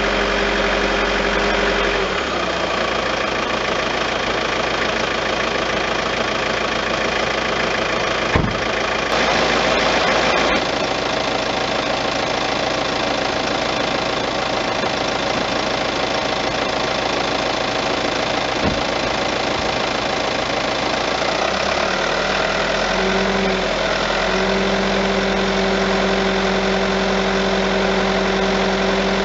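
Peugeot 508 engine running steadily. A droning hum drops out about two seconds in and comes back for the last several seconds, and there are two sharp clicks along the way. The owner describes the abnormal noise as something resonating at a particular engine speed.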